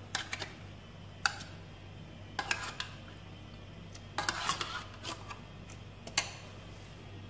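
Metal spoon scraping and clinking inside an opened tin can while scooping out canned mixed fruit cocktail: a handful of separate scrapes, with sharp clinks about a second in and again near the end. A steady low hum sits underneath.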